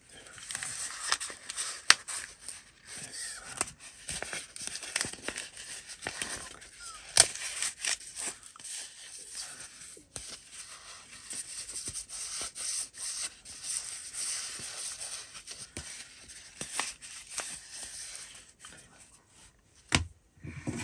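A nylon Filofax card-holder panel being flexed and handled, its stiffened fabric and lining crinkling and rustling with many small clicks. It goes quieter near the end, and there is a single knock as it is set down on the wooden bench.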